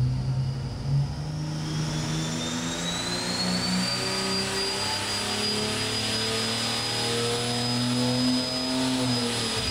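Turbocharged Ford 300 (4.9 L) inline six on an engine dyno making a pull at about 2.5 psi of boost: the engine note climbs steadily under load while a high turbocharger whistle rises over the first few seconds and then holds, dropping away as the pull ends.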